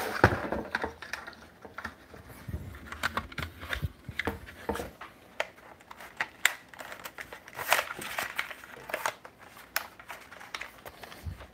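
Handling noise: scattered plastic clicks and rattles as a phone-holder clip is fitted onto a drone's remote controller, with rustling of the cardboard box.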